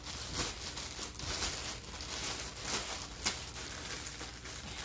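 Thin plastic bag crinkling and rustling as hands unwrap it, with a few sharper crackles.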